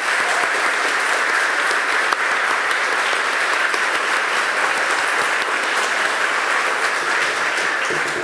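A congregation applauding: many people clapping steadily together.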